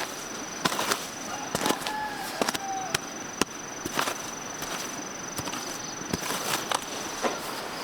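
A series of irregular sharp knocks or chopping strikes, with a steady thin high-pitched tone running under them.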